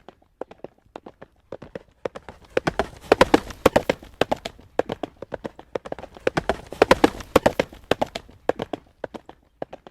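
Horse's hooves clip-clopping on a hard road surface at a trot, a quick, even rhythm of sharp strikes. It grows louder twice, around three seconds in and again around seven seconds, then fades slightly toward the end.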